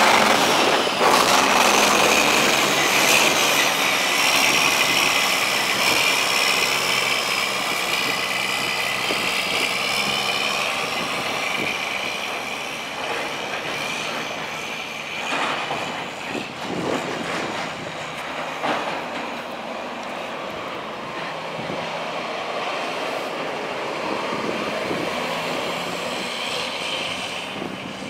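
Cummins ISM 10.8-litre six-cylinder turbo diesel of a semi truck running, with a high whine that slowly falls in pitch and fades over the first half. A few short knocks come in the middle, and the sound gradually grows quieter.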